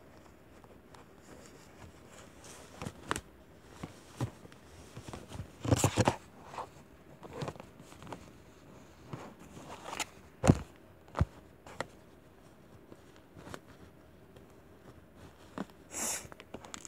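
Handling noise from a baby doll and its clothes being worked close to the microphone: irregular rustles, clicks and knocks, with a cluster of rustling about six seconds in and the sharpest knock about ten seconds in.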